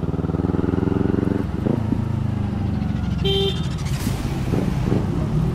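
Motorcycle engine running steadily as the bike is ridden along a wet road, its pitch shifting a little with the throttle. A brief tone sounds about three seconds in, followed by a short sharp noise.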